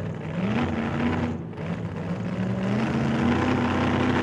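A motor running with a steady drone. Its pitch steps up about half a second in and again near three seconds, as the model boat pushes across the water.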